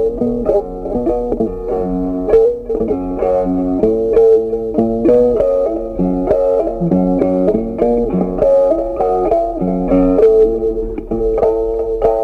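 Background music: a plucked guitar tune with a steady rhythm and bass notes.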